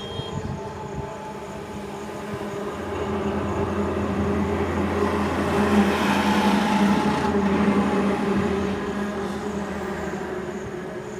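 Heavy truck's diesel engine passing close by, growing louder to a peak about six seconds in and then fading away.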